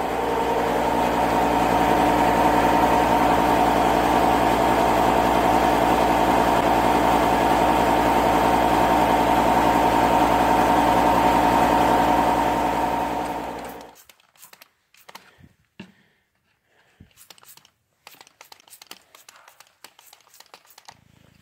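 A motor or engine running steadily with an even hum, fading out about fourteen seconds in; after that it is nearly quiet, with a few faint clicks.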